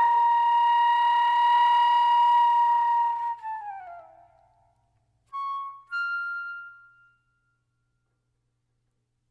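Flute music: one long held note that slides down in pitch and fades away, followed by two short, separate tones and then silence.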